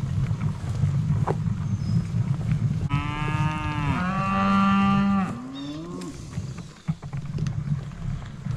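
A beef cow mooing: one long, loud moo about three seconds in, lasting about two seconds, its pitch falling and then holding low, ending in a short rising call. A steady low rumble on the microphone runs underneath.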